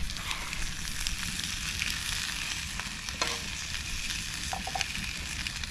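Wiener sausages sizzling in a pan over wood campfire coals, with small crackles throughout. A few light taps near the middle come as soup is ladled from a pot into a bowl.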